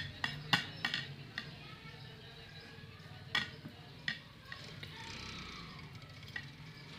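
Hands rolling soft chhena dough into a log on a ceramic plate: quiet rubbing with a few light clicks and clinks against the plate, most of them in the first second and two more about midway.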